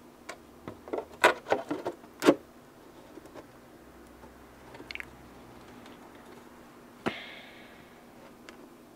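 Handling noise from a model aircraft engine cowl and a paper template on a workbench: a quick run of light clicks and knocks, then a single sharp click with a brief ring about seven seconds in.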